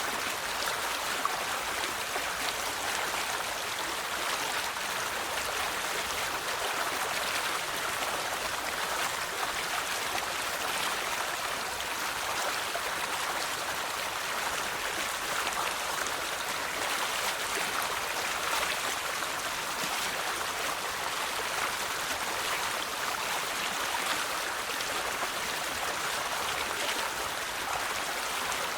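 River water flowing steadily over rocks, a continuous rushing and splashing with fine trickling detail.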